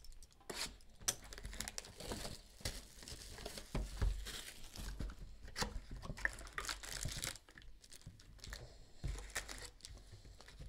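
Plastic wrap being torn off a sealed box of 2018 Panini Contenders Football cards and crinkled, for about the first seven seconds. Then the box is opened, and foil card packs rustle and click as hands pull them out.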